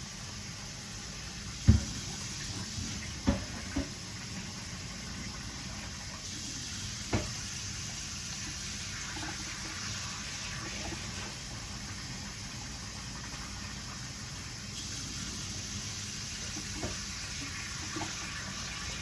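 Steady hiss of food cooking in a pan on the stove, with a few short knocks of a utensil or lid. The loudest knock comes about two seconds in, with others a little after it and about seven seconds in.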